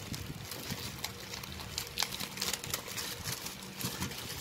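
Clear plastic packaging bag crinkling and rustling as hands work it open, with many small sharp crackles.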